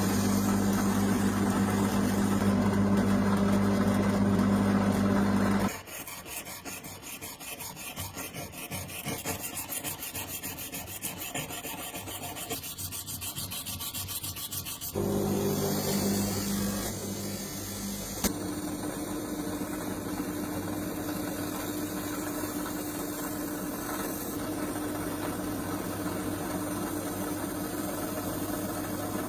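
A power tool motor runs steadily with a hum for about six seconds. Then comes about nine seconds of scraping and rubbing, typical of abrading rust off metal. A steady machine sound takes over again for the rest, with a changed pitch after about eighteen seconds.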